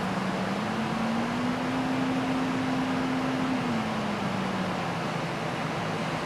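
Low pure tone from a tone-generator app played at full volume through a wet iPhone speaker to push the water out, sliding up in pitch about a second in, holding, then sliding back down near the middle. A steady hiss runs under it; the speaker is still sounding distorted from the water.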